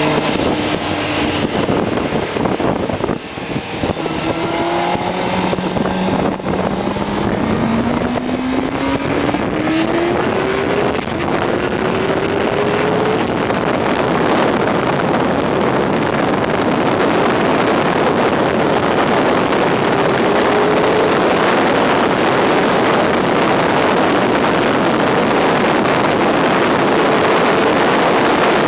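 Suzuki GSX-R sportbike's inline-four engine accelerating hard through the gears, its pitch climbing in several long rises with brief dips at the shifts. At high speed it settles into a steady rush of wind over the microphone, with the engine faint beneath it.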